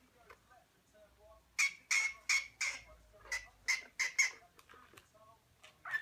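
Cockatiel chirping: a quick run of about eight loud, short chirps, about three a second, starting about one and a half seconds in, then softer calls and one more chirp near the end.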